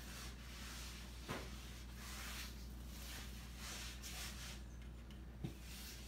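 Quiet room tone with a steady low hum, faint rustling and two soft clicks, one about a second in and one near the end.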